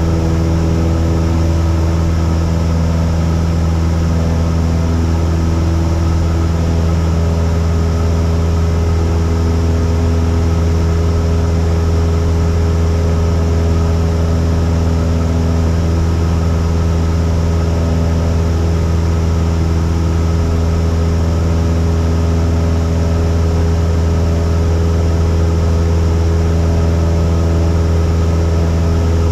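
Cessna 172's piston engine and propeller droning steadily inside the cabin, at an even pitch with a strong low hum.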